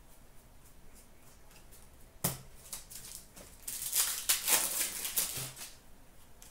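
Upper Deck hockey cards being flicked and slid through the hand: one sharp snap about two seconds in, then a run of quick rustling card strokes.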